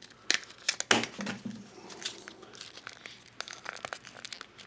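Plastic blind-bag packaging crinkling and tearing as it is handled and opened, in a series of irregular crackles.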